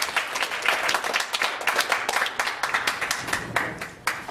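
A small group of people applauding with hand claps. The clapping is dense at first, then thins out and fades near the end, with a last single clap.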